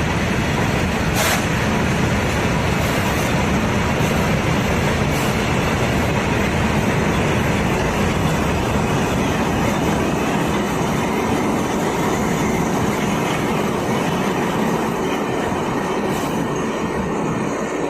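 Freight train wagons running past at speed: a steady, loud rush and rattle of wheels on the rails, with a sharp click about a second in and a slight easing near the end.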